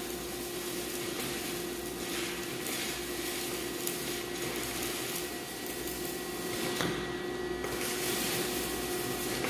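Electric arc welding: a continuous hiss from the arc that swells and eases, over a steady hum.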